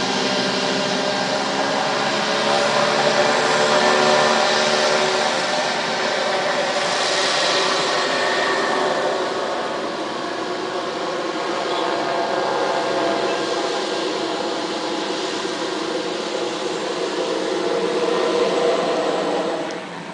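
Twin Pratt & Whitney PT6A turboprop engines of a Beechcraft 1900D running at taxi power: a steady propeller drone made of many layered tones over a turbine hiss. It swells and eases slightly as the aircraft taxis onto the runway, then drops sharply just before the end.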